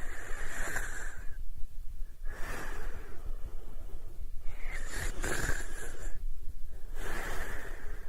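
Snoring in sleep: four noisy breaths, one every two and a half seconds or so.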